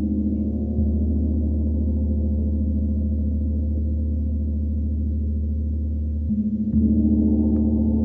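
32-inch Sri Yantra gong sustaining a deep, layered drone under soft strokes from an Ollihess 305 mallet. The attack is soft, with no sharp contact sound, and fresh strokes about a second in and again near the end swell it louder.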